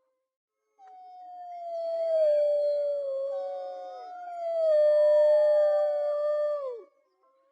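Wolves howling: after a brief silence, long overlapping howls from more than one wolf, each held steady and then sliding down in pitch at its end. The howling stops about a second before the end.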